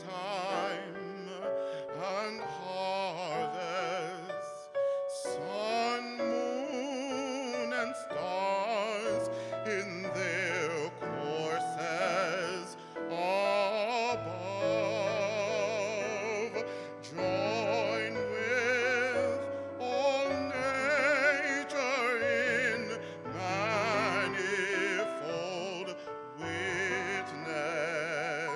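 A man singing solo with wide vibrato, accompanied by an electronic keyboard playing chords, with held bass notes coming in about nine seconds in.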